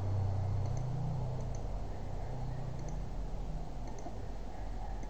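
A few scattered computer mouse clicks over a low hum.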